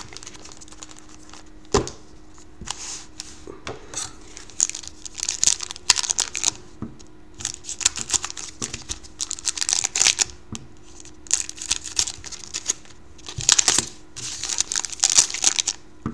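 Foil wrappers of 2012-13 Panini Certified hockey card packs crinkling as they are handled and cut open with scissors, in irregular bursts of rustling. A sharp knock comes about two seconds in.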